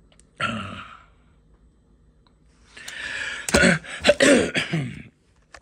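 A man clearing his throat briefly, then a longer rough throat-clearing and coughing with a few sharp clicks mixed in.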